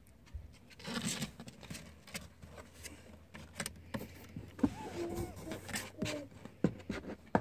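A tabby kitten scrambling at close range, its claws scratching and scraping on the wall, carpet and cardboard box: irregular clicks and rustles, with a couple of sharper knocks about halfway through and near the end.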